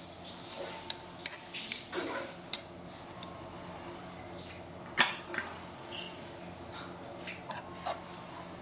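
Metal kitchen utensils clinking and scraping against dishes and pans, with scattered sharp clicks; the loudest clink comes about five seconds in.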